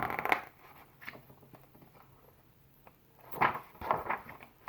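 Paper rustling and handling noise from a picture book's pages being turned: a brief rustle at the start and a longer run of rustles and light knocks about three and a half seconds in.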